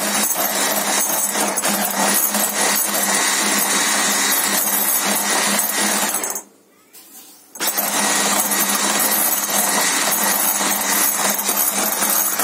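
Electric hand mixer running steadily, its twin beaters whipping egg whites into foam in a glass bowl. It cuts out for about a second just past the middle and then runs again.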